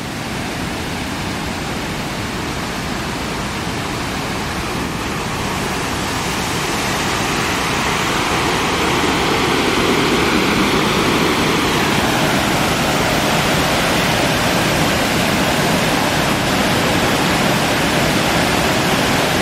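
Water pouring over a dam's overflow spillway and rushing through the rocky river below: a steady rush of falling water that grows gradually louder over the first half, then holds.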